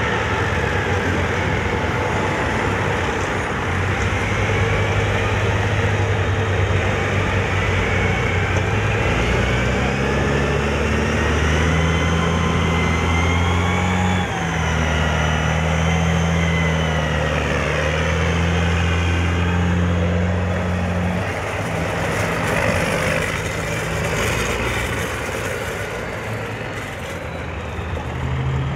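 Tracked CVR(T) armoured vehicle running: a loud, steady low engine drone that shifts in pitch a few times, with a high whine that rises and falls above it.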